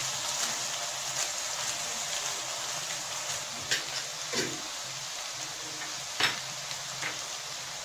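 Onions, garlic paste and julienned ginger sizzling steadily in hot oil in a non-stick wok, with a few brief knocks, like a spatula touching the pan, partway through.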